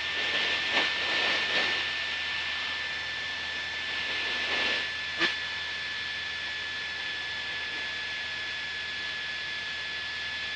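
Cessna 172 Skyhawk's piston engine and propeller droning steadily in cruise, heard inside the cabin, with a thin steady high whine over the drone. A short click about five seconds in.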